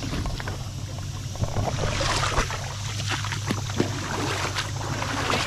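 Shallow creek water splashing and sloshing as someone moves through it, busier from about two seconds in, over a low steady rumble.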